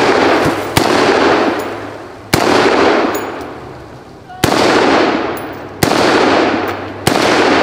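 Five single semi-automatic shots from a BCM Recce AR-15 rifle, spaced a second or two apart, each followed by a long rolling echo. Faint high pings of struck steel follow some of the shots.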